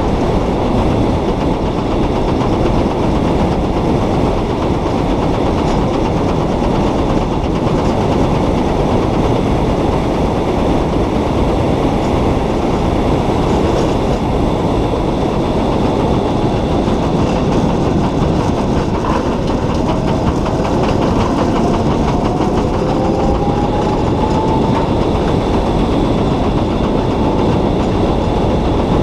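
Steady rumble and rattle of a solar race car rolling at speed, heard from on board: tyre and road noise through the light body shell. About two-thirds of the way through, a faint whine rises in pitch.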